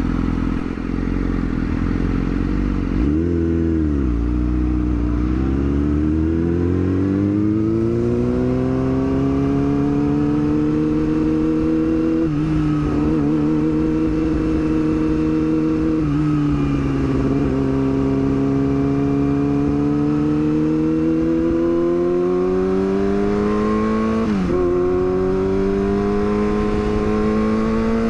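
Yamaha R6 sport bike's inline-four engine under way: a quick rise and fall in revs a few seconds in, then a long climb in pitch, dipping sharply at each of four upshifts as it accelerates through the gears.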